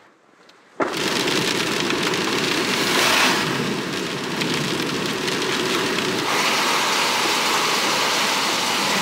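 Steady rain noise heard from inside a kei van on a wet road. It cuts in suddenly about a second in.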